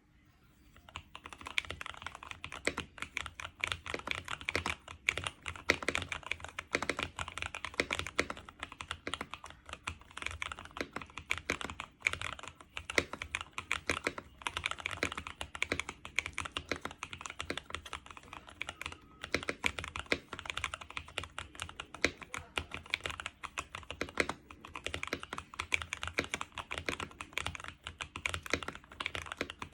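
Continuous fast typing on a custom 60% mechanical keyboard (KBD Blade60) with lubed Kiwi tactile switches, a tape-modded PCB and dye-sub PBT keycaps: a dense, irregular run of keystroke clacks that starts about a second in.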